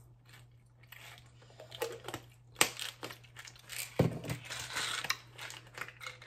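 Plastic vitamin bottles being handled and opened: a sharp click about two and a half seconds in, a knock about four seconds in, and crinkling and rustling around them.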